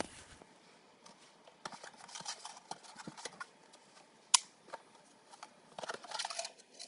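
Small plastic toys and their packaging being handled on a table: scattered taps, clicks and brief rustling, with one sharp click about four seconds in.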